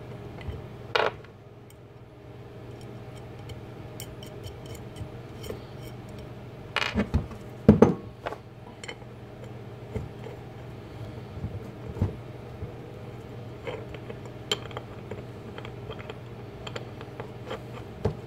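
Small steel nuts being turned onto threaded M6 studs and a steel mini-lathe carriage part handled on a wooden bench: scattered light metal clicks and clinks, with a few heavier knocks about seven to eight seconds in as the part is turned over.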